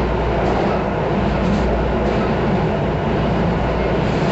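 Miami-Dade Metrorail car running along its elevated track, heard from inside the car as a steady rumble of wheels and motors.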